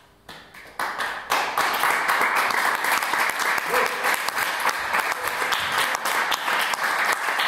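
Audience applause breaking out after a silence: a few claps at first, swelling within about a second into steady, dense clapping.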